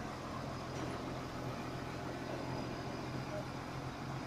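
Diesel engine of a mobile crane running steadily under load as it lifts, a continuous even hum.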